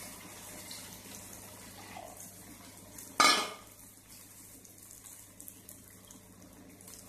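Ground spice paste and curry leaves frying in oil in an iron kadai, a steady faint sizzle. About three seconds in there is a single sharp metallic clank of a utensil against metal that rings briefly.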